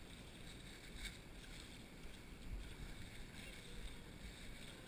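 Shallow river water splashing and running around elephants wading through it: a steady, low wash of water with an occasional soft splash.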